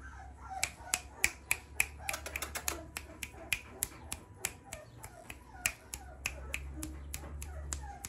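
Many sharp clicks from a person, snapping or clicking to catch a puppy's attention, coming in an uneven run of up to several a second. A low steady hum runs underneath.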